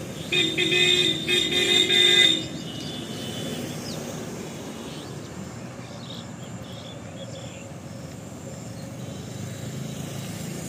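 A vehicle horn honking in several short, pitched blasts over the first two seconds, followed by a low steady rumble.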